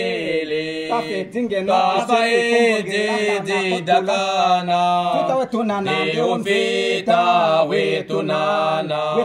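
Unaccompanied men's voices singing a slow hymn together, with long held notes.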